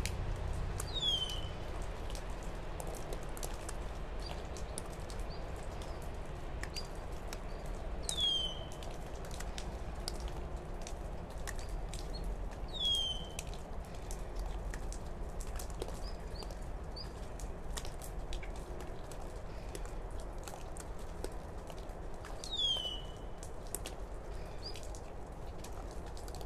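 A bird chirping four times, several seconds apart, each call a short note sliding downward. Faint clicks and rustles of hands working ties and potting soil lie under it.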